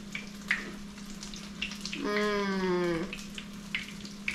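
Battered grouper frying in hot oil in a skillet: a steady sizzle with scattered crackling pops. About two seconds in, a woman's drawn-out 'mmm' of enjoyment while eating, falling in pitch, lasting about a second.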